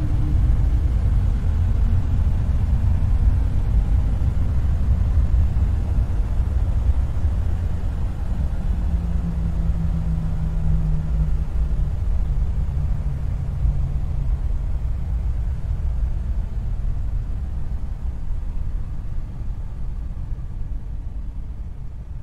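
Steady low ambient rumble, with faint hums that come and go in the middle, slowly fading toward the end.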